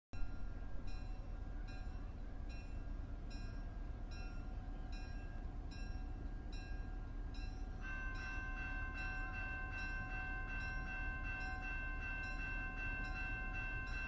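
Railroad sounds: a low train rumble with a bell ringing at a steady beat. About eight seconds in, a steady horn chord starts and holds while the bell strokes come faster.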